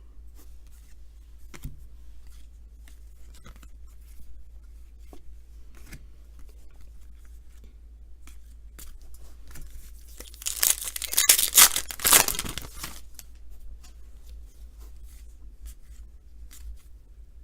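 A 2019 Topps baseball card pack's foil wrapper being torn open: a loud crinkling rip lasting about two and a half seconds, a little past two-thirds of the way through. Before it, soft scattered clicks of cards being handled.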